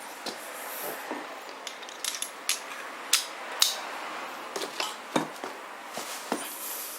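Hand tools and small metal parts of a Tohatsu 2-stroke 2 hp outboard's shift lever assembly clicking and tapping as it is taken apart: about a dozen sharp, irregular metallic clicks and knocks, the loudest about three and a half seconds in.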